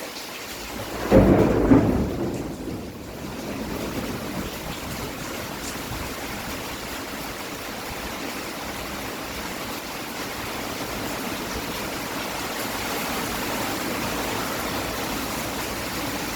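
Heavy rain pouring steadily, with a loud low rumble of thunder about a second in that dies away over a couple of seconds.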